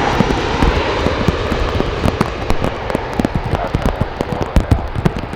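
Jet airliner engine noise slowly fading away, with raindrops tapping irregularly close to the microphone.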